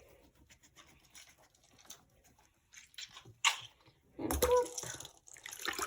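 Wet handling noises as a squishy fidget toy is soaped by hand: scattered soft squelches and pats, a sharper one about three and a half seconds in and a louder one about a second later.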